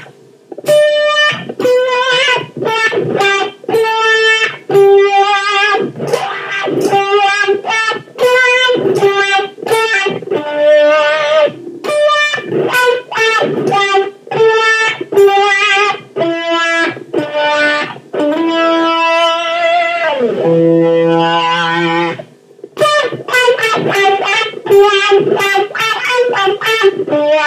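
Overdriven electric guitar played through an 18-volt Dunlop Cry Baby 535Q wah pedal fitted with Clarostat potentiometers, showing how deep the wah sweep goes. It is a phrase of short picked notes, with a long note about two-thirds of the way in that slides down in pitch, then a brief pause before the playing picks up again.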